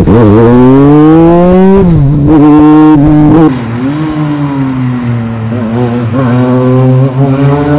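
Legends car's motorcycle engine revving hard under acceleration, its pitch climbing, dipping at a gear change about two seconds in and climbing again. After about three and a half seconds it is heard quieter from trackside, holding a steadier, slightly falling note through a corner, then rising again near the end.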